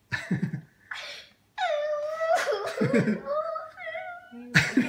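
A girl crying: short sobbing breaths, then a long, high, wavering wail from about a second and a half in. She is overcome with tears mid-sentence.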